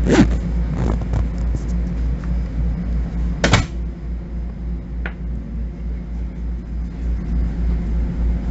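Steady, low, pulsing hum inside a Bombardier M7 railcar, with two sharp knocks, one just after the start and one about three and a half seconds in, and a fainter click a little later.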